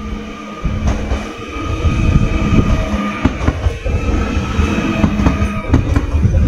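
České dráhy RegioPanter electric multiple unit rolling past close by along the platform: a heavy rumble of wheels on rail with scattered clicks and clacks, over a steady electric whine.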